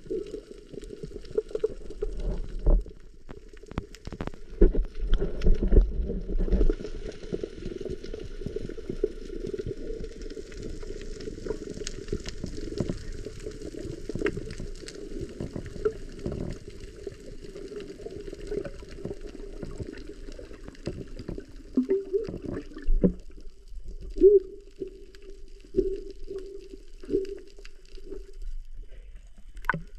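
Muffled underwater noise picked up by a submerged camera: a low rumble of moving water with scattered crackling clicks, and a few gurgling bursts of bubbles near the end.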